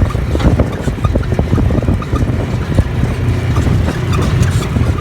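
A vehicle's steady low rumble on the move, with frequent short knocks and rattles.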